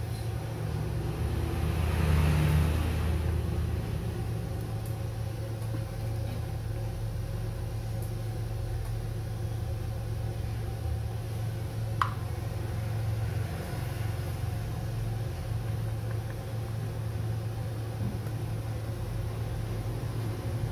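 Steady low hum in the background, with a louder rumble swelling and fading about two seconds in, and a single sharp click about twelve seconds in.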